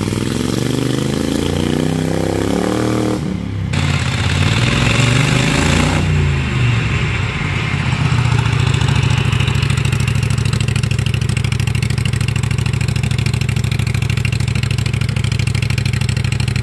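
A lawn tractor's small gasoline engine running. Its pitch rises and falls with the throttle for the first few seconds, with a brief dip just after three seconds in, then it settles into a steady run.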